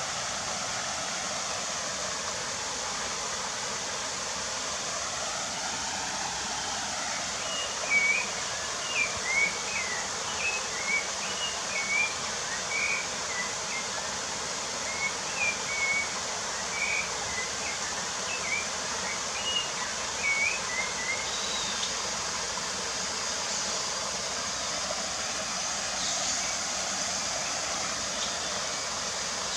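A songbird singing a run of short, clear notes, about one or two a second, from about eight to twenty-one seconds in, over a steady rushing hiss.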